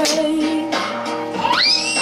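Acoustic guitar strummed, its chords ringing on, with a voice wavering over it; from about a second and a half in, a high voice slides sharply up and holds.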